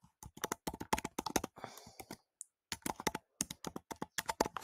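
Typing on a computer keyboard: a quick, irregular run of key clicks, with a short pause about two seconds in.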